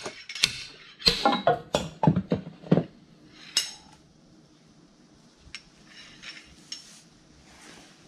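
Slide-hammer puller pulling the old front main seal out of a 6.7 Cummins ISB, its weight clacking metal on metal against the stop in a quick run of about ten sharp strikes over the first three seconds. Only faint clinks follow.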